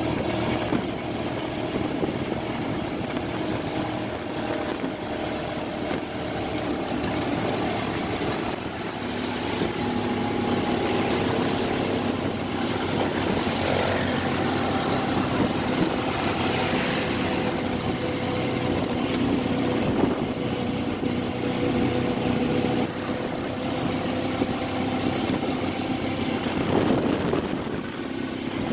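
Steady engine and road noise from a moving vehicle in city traffic, with the even hum of engines running throughout. Auto-rickshaws and other vehicles run alongside.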